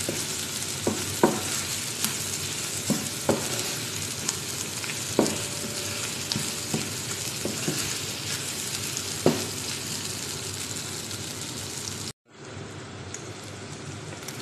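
Chicken strips, carrots and green pepper sizzling in a frying pan while a wooden spatula stirs them, knocking against the pan every second or so. About twelve seconds in, the sound cuts out for a moment and the sizzling comes back quieter.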